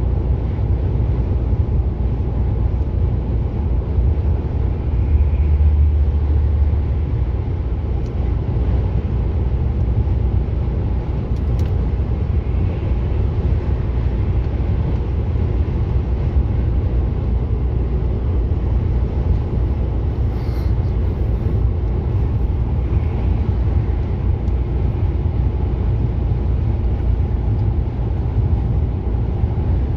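Steady low rumble of a truck's engine and road noise heard from inside the cab at motorway speed, swelling briefly about five seconds in.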